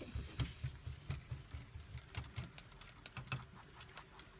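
Irregular light tapping and clicking over soft low thumps, the sound of painting supplies and brushes being handled at a table.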